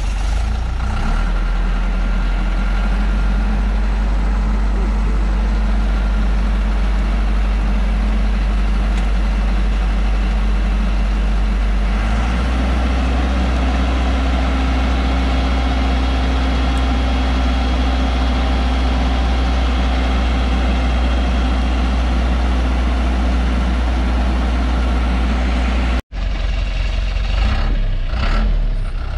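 Diesel engine of a loaded light truck running hard as it works to climb a muddy slope. The steady engine note steps up in pitch about twelve seconds in. The sound cuts out for an instant near the end, then comes back less even.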